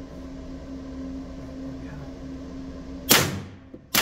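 Two shots from a suppressed 9mm FN 509 pistol with a YHM R45 suppressor firing 115-grain ammunition: the first about three seconds in, the second just under a second later at the very end. Each is a sharp report with a long ringing tail off the concrete walls of the indoor range, over a steady low hum.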